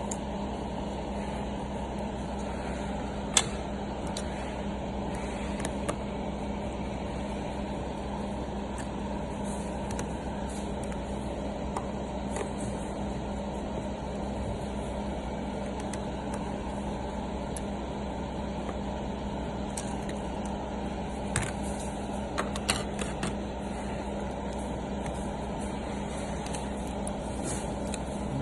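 Steady low hum and hiss, like a fan or room machinery, with a few brief clicks and taps. There is a sharp click about 3 seconds in and a small cluster of taps near the end.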